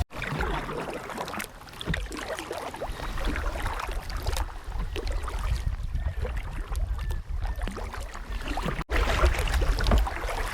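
Kayak paddling: small splashes and drips of water from the paddle strokes, over a low rumble of wind on the microphone that grows stronger in the last second or so. The sound drops out for an instant about nine seconds in.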